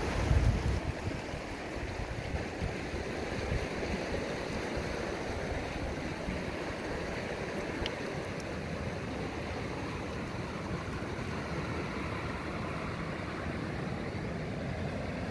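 Muddy, swollen stream rushing over rocks: a steady wash of running water. A brief low rumble on the microphone just after the start is the loudest moment.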